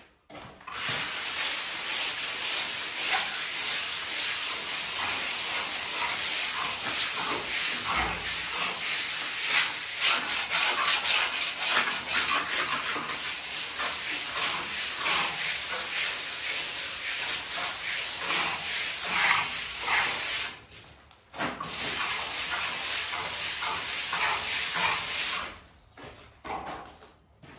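Hand float being rubbed over fresh mortar render to finish it: a loud, coarse scraping hiss made of quick back-and-forth strokes. It breaks off briefly a little after twenty seconds in and stops a couple of seconds before the end.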